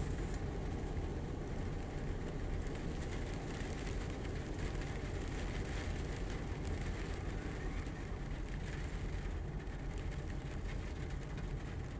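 Steady rain, with wind rumbling on the phone's microphone and a fine patter of drops.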